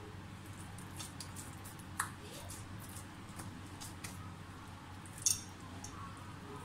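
Hands, wetted with water, patting and pressing raw chicken mince into a flat chapli kebab patty: soft squishing, with two sharp clicks about two seconds in and about five seconds in, over a low steady hum.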